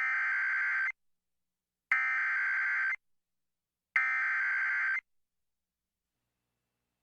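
Emergency Alert System SAME header: three bursts of buzzing digital data tones, each about a second long and about a second apart. They encode the start of an alert, here a National Weather Service severe thunderstorm warning, broadcast over FM radio.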